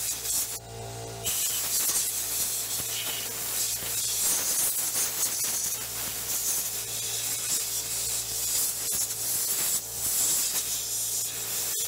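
Compressed air hissing from a handheld air blow gun in long blasts, cleaning dirt from around a car's fuel pump access cover, with a short break about half a second in and brief breaks near the end.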